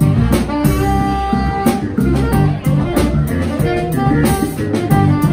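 Live jazz trio: saxophone playing the melody over an electric bass line and a drum kit, with cymbal and drum hits keeping time.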